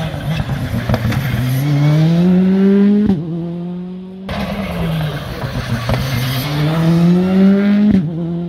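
Rally car engine revving hard through a bend, its note climbing twice and each time breaking off sharply, with a few sharp pops along the way.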